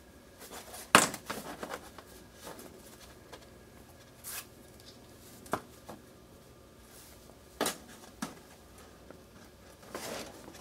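Handling noise from a small carbon-fiber micro quadcopter frame with 6mm motors in foam mounts being turned over in the hands: scattered light clicks and rustles, the sharpest click about a second in.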